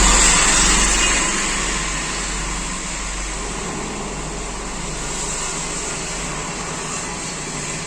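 Speaker driven by a faulty home theatre amplifier board, giving out a steady hissing, rushing noise over a low hum with no input signal. It is the fault noise the repairer is tracing to a bad amplifier IC. The noise is loudest at the start and eases slightly after about two seconds.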